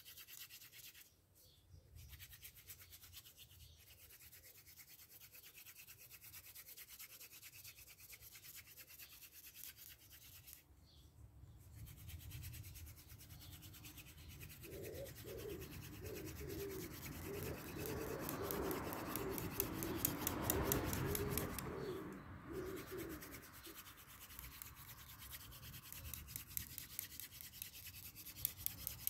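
Hand-drill fire-making: a wooden spindle spun back and forth between the palms on a wooden hearth board, a steady rasping rub of wood on wood and hands on the shaft. It grows louder with quick repeated strokes a little past the middle, then eases off again.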